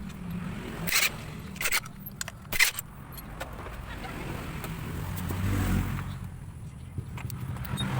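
Three sharp metal clinks in the first three seconds, from tools on engine parts while a motorcycle engine is taken apart. Under them runs a steady low engine rumble that swells about five to six seconds in.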